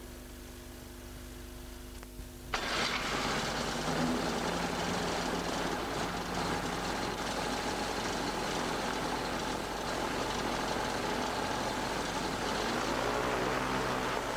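Konig SD570 three-cylinder two-stroke radial aero engine running steadily on the ground, a run-up after a period of storage. It sets in suddenly about two and a half seconds in, after a faint steady hum.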